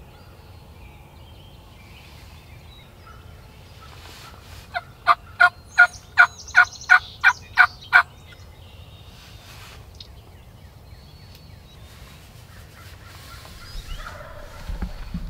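Wild turkey yelping: a run of about eleven loud, evenly spaced yelps, roughly three a second, over the middle three seconds, with faint birdsong in the background.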